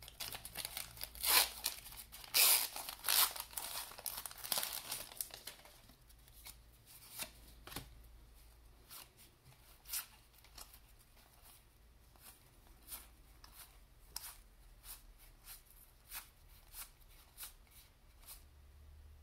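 A 1990-91 Pro Set hockey card pack's paper wrapper torn open and crinkled for the first five seconds or so. Then the cards are slid and flicked one by one, making scattered light clicks.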